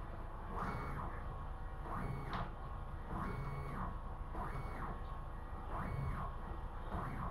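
Stepper motors of a Core XY CNC machine making a series of short jog moves, about one a second: each move is a whine that rises in pitch, holds briefly, then falls away as the carriage accelerates, runs and stops.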